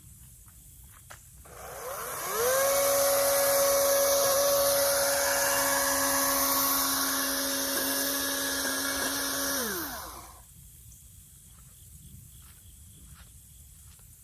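Toro chainsaw motor spinning up to speed about two seconds in, running at a steady high pitch for about seven seconds, then winding down and stopping.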